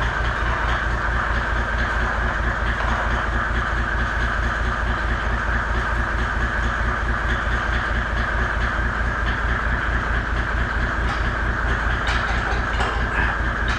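A machine running steadily, with a fast, even low pulse.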